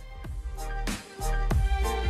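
Background music with a beat, drum hits and a deep bass that gets louder about a second and a half in.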